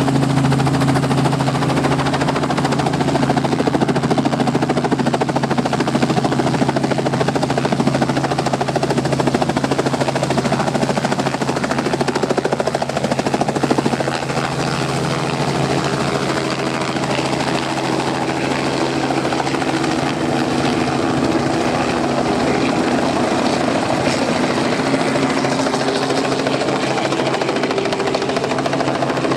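Robinson light helicopter's piston engine and two-blade main rotor running steadily close by, through lift-off into a hover, flight and back on the landing pad with the rotor still turning.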